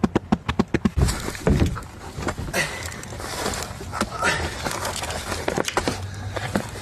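Young Belgian Malinois in bite training gripping and tugging a decoy's padded bite suit. For about the first second there is a fast run of sharp knocks, about eight a second. Then steady scuffling and thrashing follows, with a few short cries.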